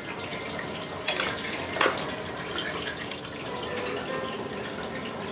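Restaurant kitchen at work: a steady watery hiss with small clinks, and two louder clattering knocks about a second and nearly two seconds in.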